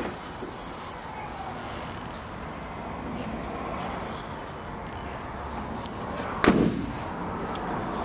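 Steady background noise with one loud thump about six and a half seconds in.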